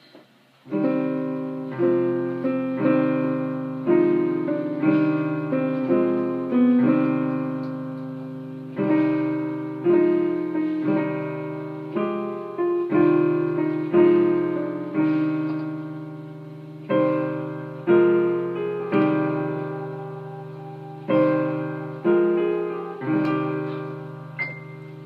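Piano music, starting just under a second in: chords struck about once a second, each ringing out and fading over a held low note.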